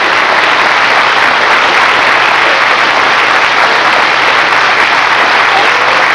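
A studio audience applauding, a dense even clapping.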